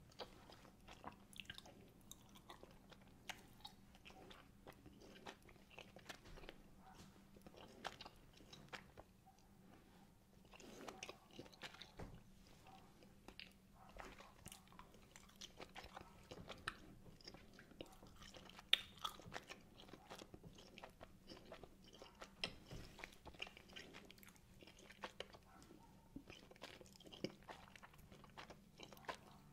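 Chewing wine gums, a firm gummy candy: quiet, irregular mouth clicks throughout, with one sharper click a little past halfway.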